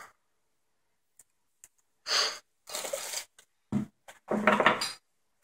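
Objects being handled: a few short bursts of rustling and scraping and a knock, starting about two seconds in after a near-silent opening.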